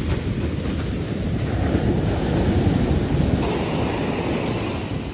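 Ocean surf from a large hurricane swell breaking and whitewater washing up the beach, with wind buffeting the microphone as a low rumble. A little over three seconds in, the hiss of the wash grows stronger.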